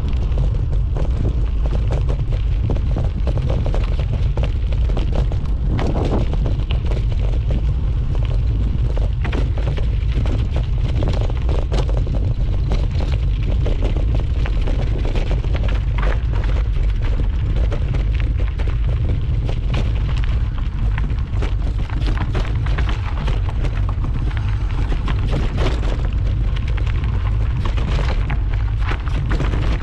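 Wind buffeting the microphone with a steady heavy rumble, over dense irregular clatter and crunching as a mountain bike descends a rough trail path.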